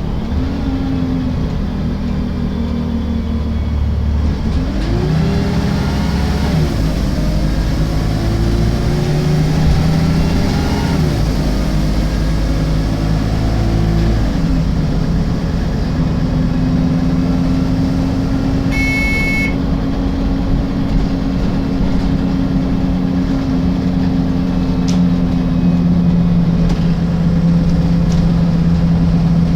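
Diesel engine of an Alexander Dennis Enviro 300 bus on a MAN chassis, its pitch rising and dropping back three times as it accelerates, then running at a steady note. A short high tone sounds once, a little past the middle.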